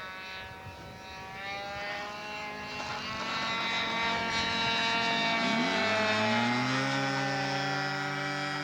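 Radio-controlled scale model airplane's engine running through a low touch-and-go pass. It grows louder and its pitch drops about five to six seconds in as it goes by.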